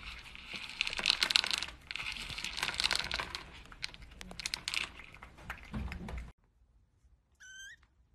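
A cat crunching dry kibble, with pellets clicking and rattling in a plastic bowl as it paws at them: dense crackly crunching that stops abruptly about six seconds in. Near the end comes one brief, high, rising kitten mew.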